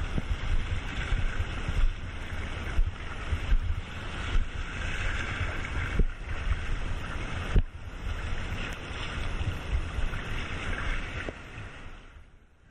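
Wind buffeting the microphone over the rush and splash of shallow sea water, with a few sharp knocks about halfway through. The sound drops away abruptly near the end.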